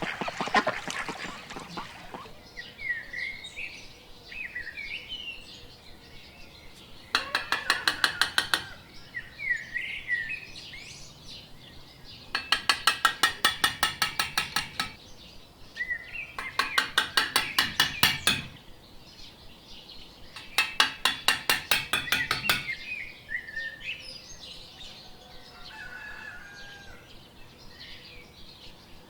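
Small birds chirping steadily in the background. Over them come five loud bursts of rapid clicking, each lasting about two seconds; the first is right at the start and the rest come every few seconds.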